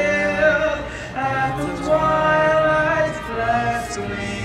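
Singing with long held notes that slide between pitches.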